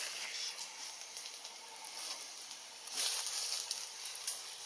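Forest ambience: a steady high hiss with scattered faint ticks, growing louder about three seconds in.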